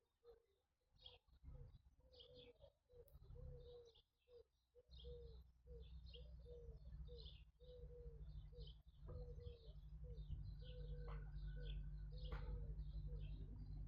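Faint birdsong: high, short chirps over a lower call that repeats about twice a second. A low steady rumble comes in about five seconds in.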